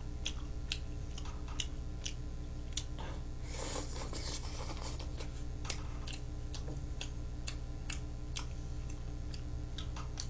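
Light, irregular clicks of chopsticks against each other and the plastic takeout tray as food is picked up and stirred, about two or three a second, over a steady electrical hum, with a brief rustle about four seconds in.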